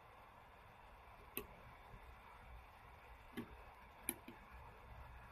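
Tactile push-button switches on a timer circuit board clicking as they are pressed, a few short quiet clicks at uneven spacing, two of them close together about four seconds in.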